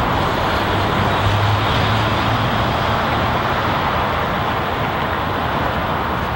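Steady road traffic noise, an even rush with a low rumble underneath and no single vehicle standing out.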